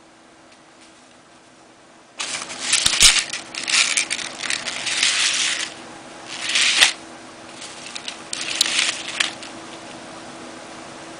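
Metal ball chain clinking and the hard plastic Secure-Ex sheath of a Cold Steel Double Agent II knife being picked up and handled. The sound comes in several bursts of rustling clatter with a few sharp clicks, starting about two seconds in.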